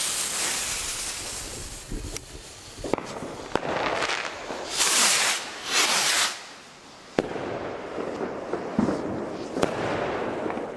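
Nico Starburst Symphony firework rockets (Blast and Flash types) launching with rushing hisses, one near the start and two more around five and six seconds in. Sharp bangs ring out as they burst, the sharpest a little after seven seconds in.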